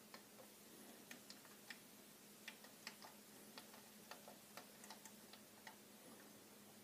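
Faint, irregular clicking of push buttons on an MCS Series stereo tuner being pressed to change stations and presets, about fifteen small clicks over a low steady hum.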